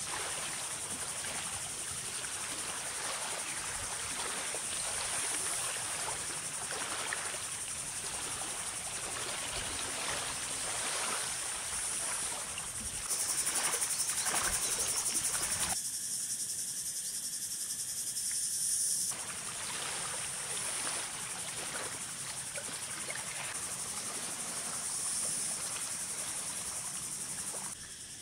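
Steady high-pitched insect chorus over a wash of outdoor background noise. The sound changes abruptly about halfway through and again a few seconds later, as between separately recorded shots.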